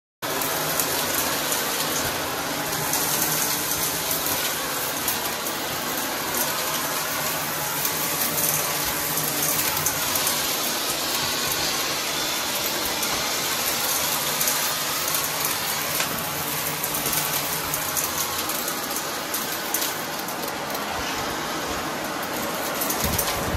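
Upright vacuum cleaner running steadily at full power, cutting in abruptly at the start.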